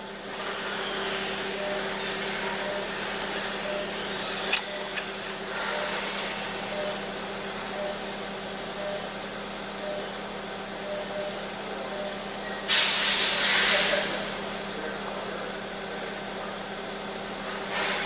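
2014 Hyundai Elantra GT engine idling steadily, with a few light clicks and, about 13 seconds in, a loud hiss lasting just over a second.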